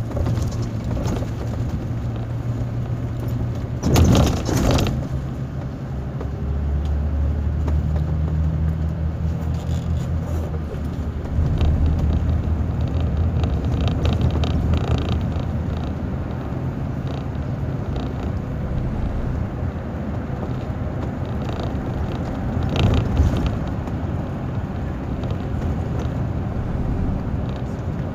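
Intercity coach's diesel engine running with tyre and road noise, heard inside the cabin while cruising. The engine note shifts lower about six seconds in, and a brief loud rattle comes about four seconds in, with a smaller one later.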